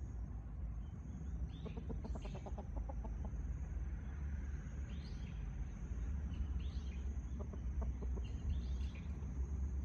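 Chickens clucking quietly: a quick run of low clucks about two seconds in, more clucks now and then, and a few short higher calls, over a steady low rumble and a thin high tone.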